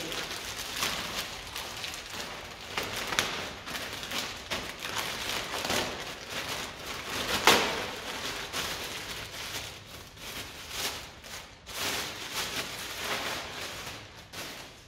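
Crackling rustle of a motorcycle's plastic cover being handled and fitted, with scattered small clicks and one louder click about seven and a half seconds in.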